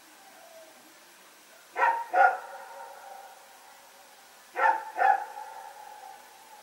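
A dog barking at night: two quick double barks, about three seconds apart, each followed by a short echo.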